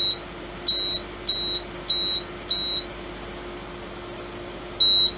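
Agilent E3633A power supply's built-in beeper sounding a string of short high beeps about 0.6 s apart, five in a row, then a pause of about two seconds, then two more near the end. These are error beeps: the supply goes into error mode when its output is switched on. A faint steady low hum runs underneath.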